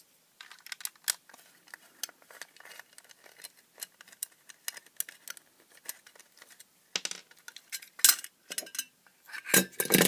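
Small clicks, taps and clinks of a screwdriver and metal parts being handled while a metal projector case is taken apart, with a couple of sharper knocks about seven and eight seconds in.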